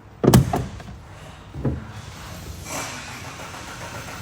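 Forklift engine starting: a loud clunk about a quarter second in and a smaller one near 1.7 s, then the engine running steadily.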